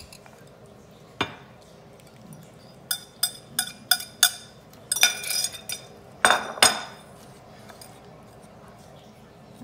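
Metal wire whisk clinking against ceramic mixing bowls. There is a single clink, then a quick run of about five sharp taps, then two short rattling bursts with a ringing edge.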